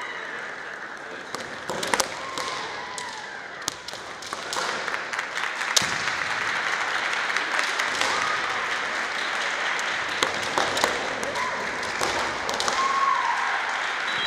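Kendo sparring: bamboo shinai clacking and sharp knocks from the bout, scattered irregularly, with the fencers' short kiai shouts a few times. Both come over a steady background of hall noise.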